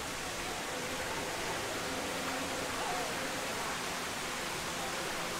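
Steady, even rushing noise like running or falling water, unchanging throughout.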